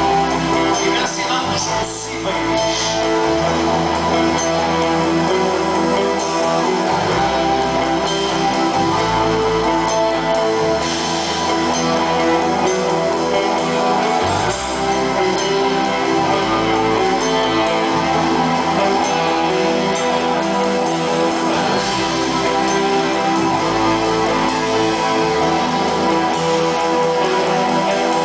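Live rock band playing, with electric guitars to the fore over bass notes that change about every two seconds.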